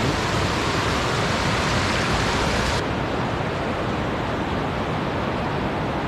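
A river rushing steadily over rock at the top of a waterfall, as a loud, even roar. About three seconds in, the hiss turns slightly duller.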